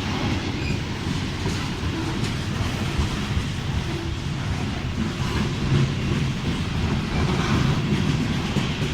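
Ferrosur freight train rolling past: a steady low rumble of wheels on rail with an irregular clickety-clack of wheels over rail joints.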